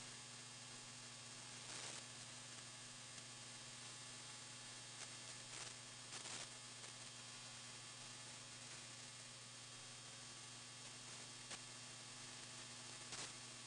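Faint, steady static hiss under a low hum, with a few faint clicks.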